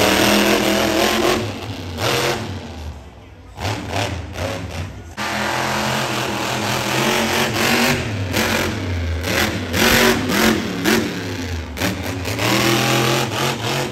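Monster truck engine revving hard, its pitch rising and falling, with a lull around three to five seconds in before it picks up again.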